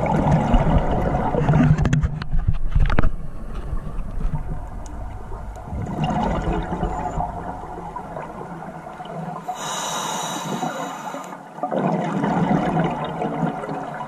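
Scuba diver breathing through a regulator underwater: bubbling, gurgling exhalations, with a hissing inhale lasting about two seconds near the ten-second mark.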